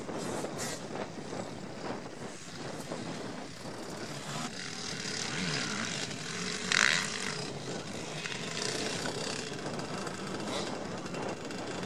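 Motocross bike engines revving over a dirt jump, the pitch rising and falling as the throttle opens and closes. There is a short loud burst about seven seconds in.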